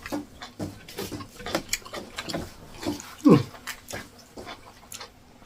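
Close-up eating sounds of people eating fufu with egusi soup: wet lip smacks and chewing clicks. About three seconds in there is a short vocal sound that falls in pitch.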